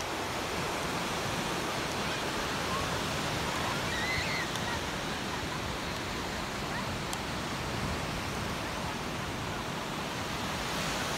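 Steady wash of ocean surf breaking on a sandy beach, an even rushing noise with no pauses. Faint distant calls come through briefly about four seconds in.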